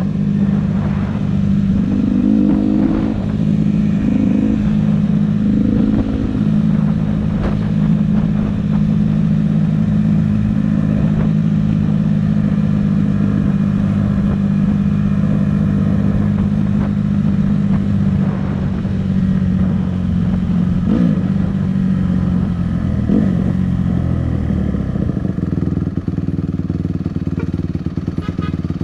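Honda CRF150R dirt bike's single-cylinder four-stroke engine running under way at steady revs, with a few short throttle blips in the first several seconds. About three-quarters of the way through the revs drop and the engine settles lower, near idle, as the bike slows.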